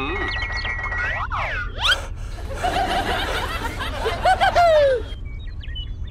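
Cartoon sound effects: a few whistling glides rising and falling in pitch, then a high-pitched, sped-up giggling voice that ends on a falling swoop and cuts off suddenly about a second before the end. Faint bird chirps follow.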